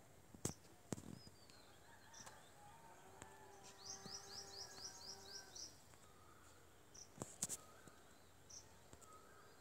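Near silence: faint background with a bird's quick run of about eight short chirps about four seconds in, and a few sharp clicks.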